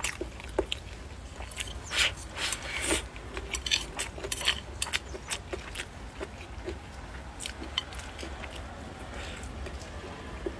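Close-up eating sounds: a person chewing and smacking on mouthfuls of rice with stir-fried meat and peppers, with short crisp clicks of chopsticks against the bowl, busiest in the first half, over a steady low hum.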